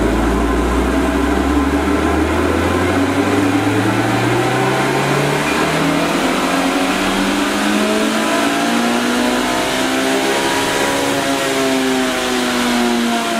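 Toyota Blacktop 20-valve 4A-GE four-cylinder engine making a full-throttle dyno pull through a decat exhaust. The engine note climbs steadily to high revs over about eleven seconds, then drops away near the end as the run finishes.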